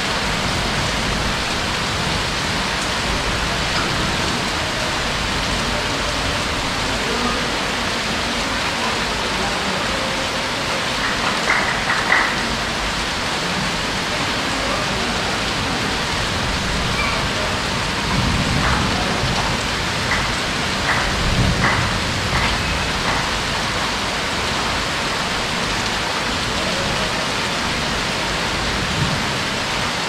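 Heavy rain falling steadily in a dense, even hiss. A few brief louder sounds cut through it around a third of the way in and again past the middle.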